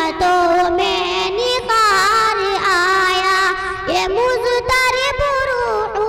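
A young girl singing solo into a microphone, holding long, wavering notes that slide from one pitch to the next.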